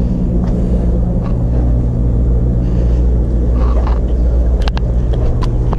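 Steady low electrical hum of the aquarium store's running pumps and filtration, with a few sharp clicks near the end.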